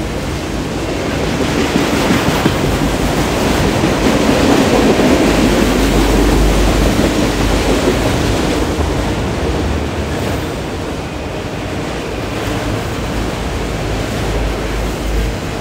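Empty coal hopper cars rolling past on the rails, a dense steady clatter of wheels on rail that sounds like every wheel has a flat spot. It swells a couple of seconds in and eases off after the middle, with some wind rumble on the microphone.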